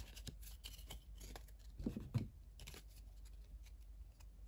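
Trading cards being handled and flipped through by hand: faint sliding and light flicks, with two louder taps about two seconds in.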